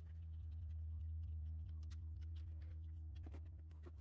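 Engine oil draining from the oil pan into a drain pan, a faint trickle with light patter, under a steady low hum.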